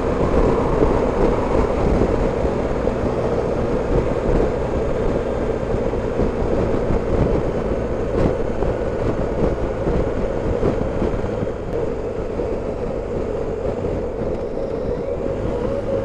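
Steady wind and road noise on the camera microphone while riding a BMW R 1250 GS Adventure motorcycle, with its boxer-twin engine running at a steady cruise underneath.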